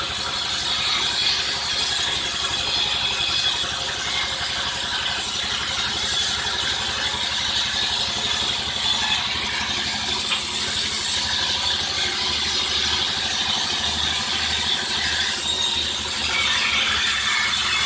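Sawmill machinery running: a steady mechanical clatter and rattle, with a low pulsing that comes in about ten seconds in.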